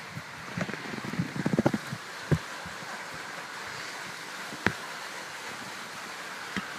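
Steady hiss of a heavy rainstorm, with a cluster of louder knocks and thumps around one to two seconds in and two single sharp ones later.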